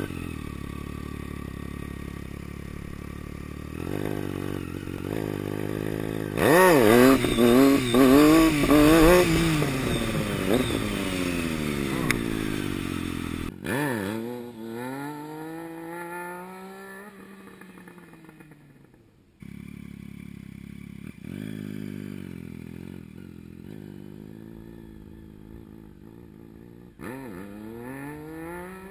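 Triumph Street Triple 675's inline three-cylinder engine, loud and close from the rider's helmet, revving in a run of sharp throttle blips that rise and fall in pitch as the rider tries to lift the front wheel for a wheelie. Heard from farther off, the engine revs once more and fades as the bike pulls away, runs quieter and steadier, then revs up again near the end.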